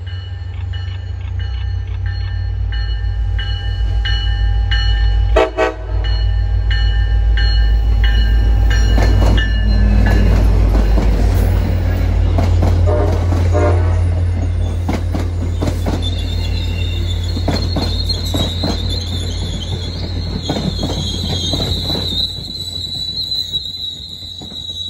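MBTA commuter train led by an F40PH-3C diesel locomotive approaching and passing close by. The locomotive's horn blows for about the first ten seconds, broken briefly once, over a heavy low diesel rumble that peaks as it passes. The bilevel coaches then roll by with a high wheel squeal from the curve, starting about two-thirds of the way through.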